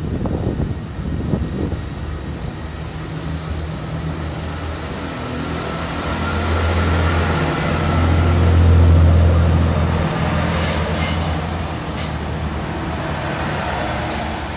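Class 166 Turbo diesel multiple unit pulling away and passing close by, its underfloor diesel engines running under power with a deep steady drone that swells to loudest about eight or nine seconds in, then eases. A few sharp clicks come near the end as the train goes by.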